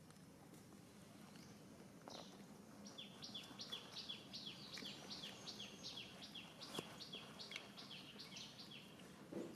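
A bird calling in a faint, rapid series of short high chirps, each falling in pitch, about three a second, starting about three seconds in. One sharp tap partway through.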